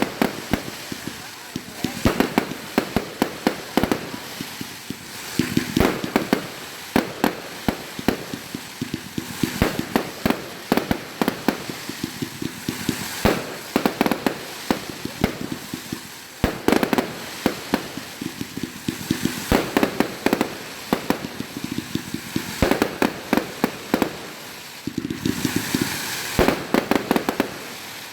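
Fireworks going off in rapid clusters: many sharp bangs and crackling pops, one after another, with short lulls between volleys.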